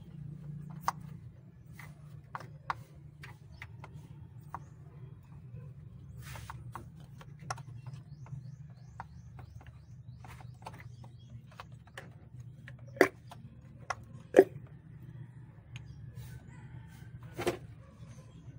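Hand tools and engine parts clinking and knocking as a V6 engine is taken apart to reach an ignition coil: scattered sharp clicks, with three louder knocks about 13, 14.5 and 17.5 seconds in, over a steady low hum.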